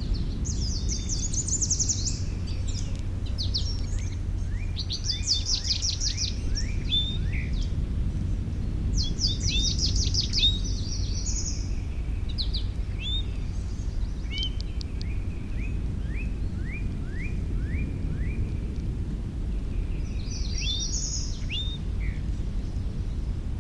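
Several songbirds singing in turn: quick high trills and short series of downward-slurred whistled notes, in phrases every few seconds. A steady low rumble of background noise runs underneath.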